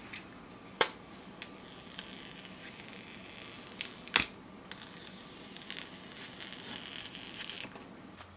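Clear plastic protective film and packaging being handled and peeled off a new iPhone 7 Plus, crinkling, with a few sharp clicks, the two loudest about a second in and about halfway through.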